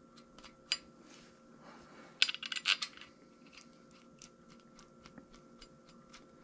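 Steel cam bolts clinking and ticking as they are handled and threaded by hand into a camshaft timing gear. A sharp click comes just under a second in, a quick cluster of metallic clinks comes a little after two seconds in and is the loudest part, and faint light ticks fall between.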